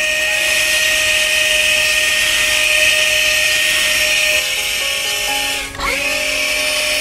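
Cordless handheld vacuum cleaner running, a steady motor whine over an airy hiss of suction. The whine drops out for a moment about six seconds in and comes straight back.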